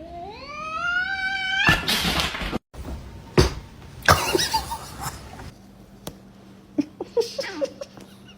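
A cat gives one long meow that rises in pitch, followed by rustling and a couple of knocks, then a few short squeaky mews near the end.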